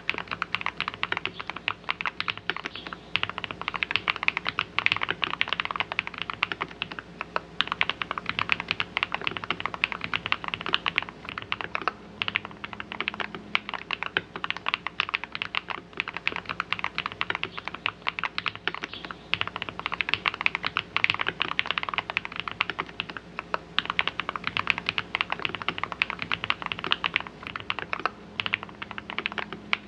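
Continuous fast typing on a computer keyboard: a dense run of key clicks with brief lulls between bursts.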